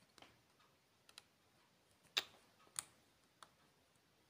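A few faint, sharp clicks and ticks of fingernails on a plexiglass diamond-painting mirror as fingers pick at the edge of its adhesive printed canvas, the clearest two about two seconds in, less than a second apart.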